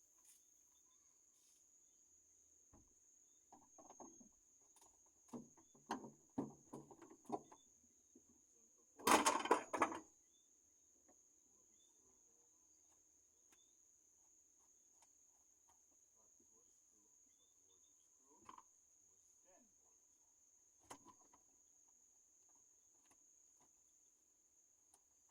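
Scattered clicks and rattles of hand tools working on a car's shifter linkage, with a louder rattling clatter lasting about a second around nine seconds in, over a steady high-pitched whine.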